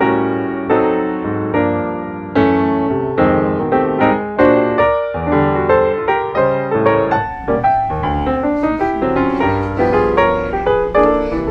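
Background piano music: a gentle melody of struck notes, each fading after it is played.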